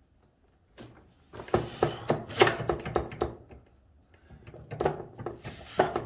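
Cylinder of a twin-cylinder two-stroke snowmobile engine being rocked and pulled on its studs, giving a quick run of metal clunks and scrapes about a second and a half in and another near the end.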